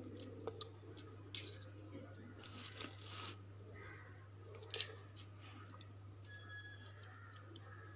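Faint clicks and rustles of plastic spoons being shifted and set down on a foil-covered board, with one sharper click about five seconds in, over a steady low hum.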